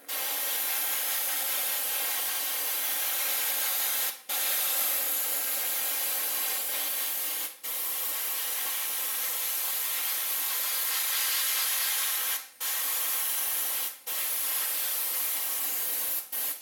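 Airbrush spraying paint: a steady hiss of compressed air, broken off four times as the trigger is let go, then a couple of short quick bursts at the very end.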